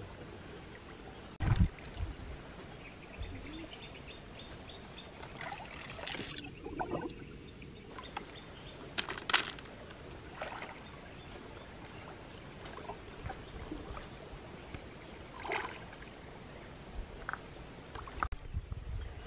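Shallow stream water sloshing and splashing in short, scattered bursts as someone wades and moves their hands through it along the bottom, over a steady hiss of flowing water. There is a sharp low thump about a second and a half in, and a brief cluster of splashes around the middle.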